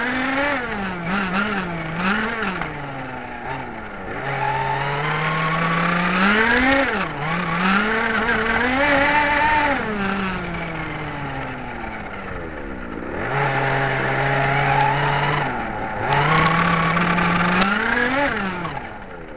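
Small 23cc two-stroke petrol engine of a large-scale radio-controlled car, picked up by the camera riding on the car. The revs climb and drop again and again as it drives, with two spells of steadier, lower-speed running, and the sound fades away near the end.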